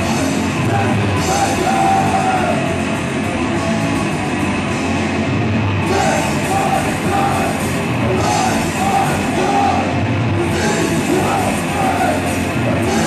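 Live punk rock band playing loud, with distorted electric guitars, drums with cymbal crashes, and a singer yelling the vocals.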